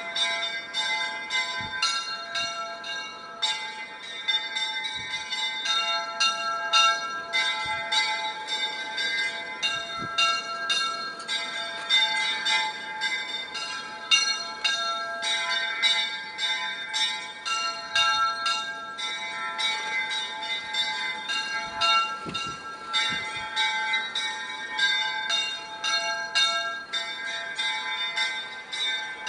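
Church bells of several different pitches rung together in a continuous peal. New strikes come a few times a second, and each tone rings on under the next.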